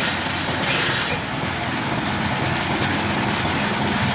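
A machine running steadily, with a fast low flutter under an even hiss.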